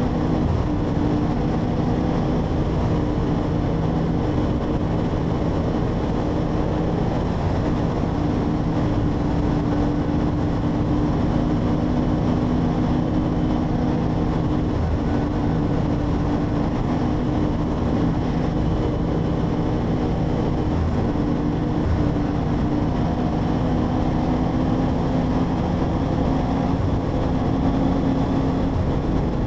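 Motorcycle engine running steadily at highway cruising speed, with wind and road noise. The drone holds an even pitch throughout, with no gear changes or revving.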